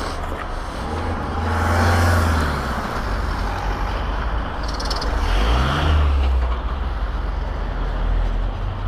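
Police vehicle engine running at speed with road and wind noise, swelling twice as it accelerates, about two seconds in and again near six seconds, its pitch rising.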